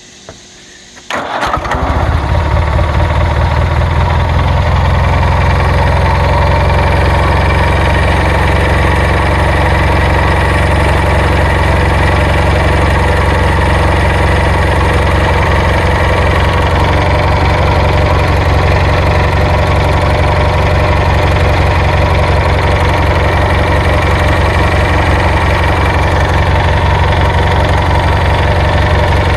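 Kohler 20 hp Magnum twin-cylinder engine on a riding lawnmower running steadily at an even speed. It comes in suddenly about a second in, loud, with a low, even firing pulse.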